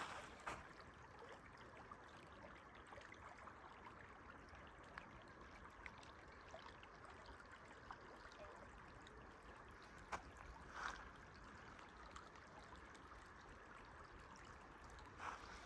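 Near silence: a faint, steady outdoor hiss with a few brief ticks.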